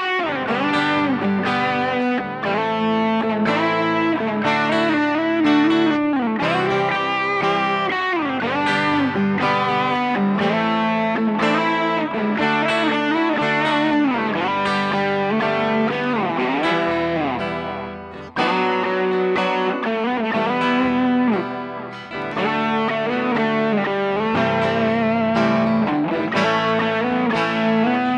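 Electric guitars playing a lead solo, the melody full of bent and sliding notes over a steady lower part. The playing drops away briefly about eighteen seconds in.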